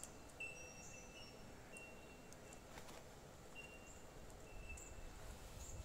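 Near silence: quiet room tone with faint, short high-pitched chirps repeating every second or so, and a faint click or two.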